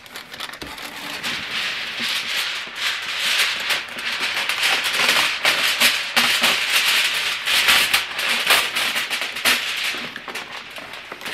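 Heavy-duty aluminum foil crinkling and rattling as a sheet is pulled off the roll from its box and torn off.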